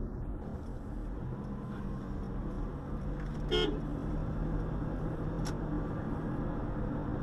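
Steady engine drone and road rumble heard from inside a moving car, with one short car-horn beep about three and a half seconds in and a faint click a couple of seconds later.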